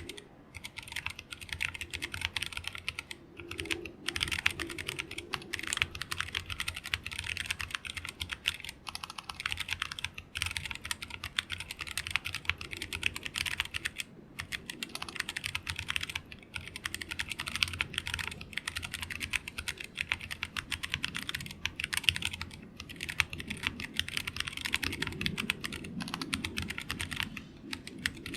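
Continuous fast typing on a mechanical keyboard with Zealios V2 tactile switches (67 g springs), mounted plateless on a BM60 hotswap PCB: a dense stream of key clacks, with short pauses now and then.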